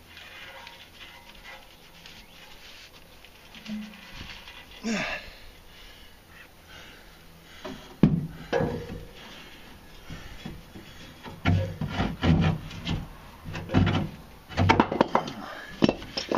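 A man grunting and breathing hard as he strains on a pry bar to force a worn rubber exhaust hanger off its rod. There is a sharp metal knock about eight seconds in, then a run of short, loud strains and knocks near the end.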